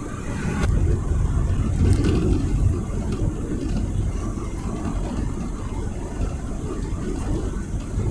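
A moving car's engine and road noise, a low steady rumble, with a couple of light knocks in the first two seconds.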